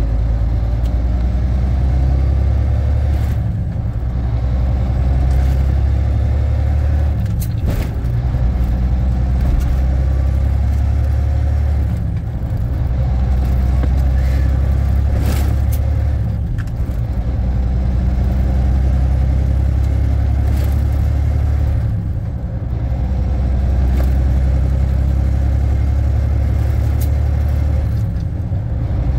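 Volvo VNL780 semi truck's diesel engine running at road speed: a steady low drone with road noise, easing off briefly a few times, and a few light rattles.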